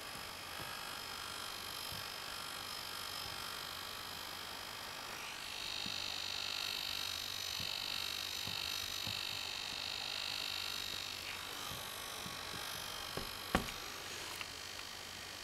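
13-inch MacBook Pro's internals running with a steady high whir and faint, irregular ticks, the whir growing stronger for a few seconds in the middle, and one sharper click near the end. The ticking is a constant noise from the top left of a new machine that also runs warm under light use.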